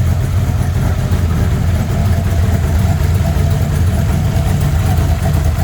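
Engine idling steadily, a low even rumble, after the owner has been chasing problems with it.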